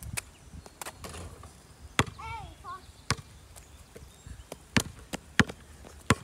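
Basketball dribbled on an asphalt driveway: about seven sharp, single bounces at uneven spacing.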